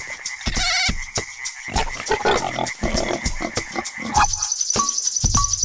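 Frogs croaking over a steady rhythm of sharp percussive taps. About four seconds in, a high, rapidly pulsing insect trill takes over, with a short pitched pip on the beat.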